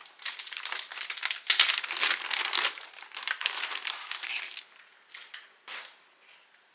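Plastic packaging crinkling as a motherboard is lifted out of its box and unwrapped; it is loudest about a second and a half in and stops after about four and a half seconds. Two light taps follow near the end.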